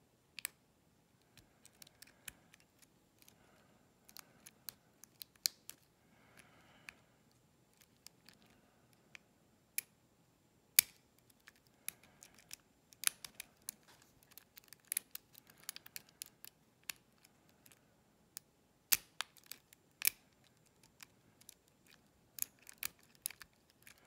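Lock pick and tension wrench working the pins of a pin-tumbler challenge lock: irregular small metallic clicks and light scrapes, with a few louder clicks standing out.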